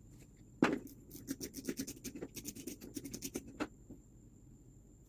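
A knock, then about three seconds of quick, irregular scratchy clicks from fishing tackle being worked on by hand.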